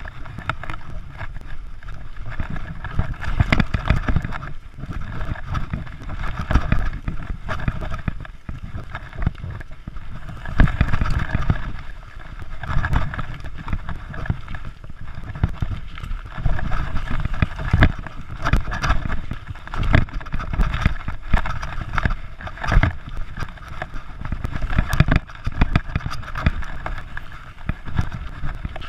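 Mountain bike ridden over a rough dirt jungle trail: a continuous low rumble of tyres and wind buffeting the microphone, with frequent clicks and rattles from the bike as it jolts over roots and stones.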